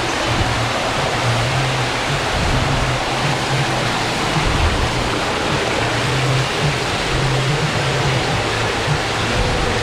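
Water rushing steadily through an enclosed tube water slide, a loud even hiss, with the slide's built-in themed soundtrack playing over it, a low steady hum underneath.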